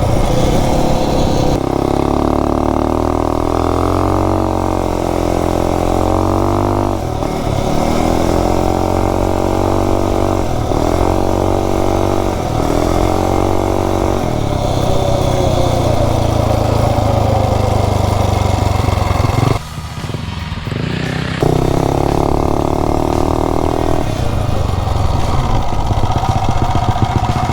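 Tillotson 263cc single-cylinder minibike engine running under load, revving up and easing off several times, with a brief throttle-off about twenty seconds in. The owner finds it running rich, with a dead spot when the throttle is opened.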